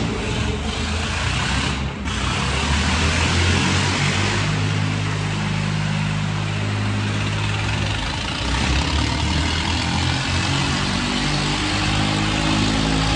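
Two Swaraj 855 tractors' three-cylinder diesel engines running hard under heavy load as they pull against each other in a tug-of-war, with a brief dip about two seconds in.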